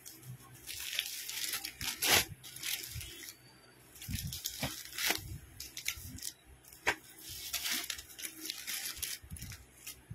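Clear plastic packets of folded cotton saris crinkling and crackling as they are handled and shuffled, in irregular bursts with sharp crackles.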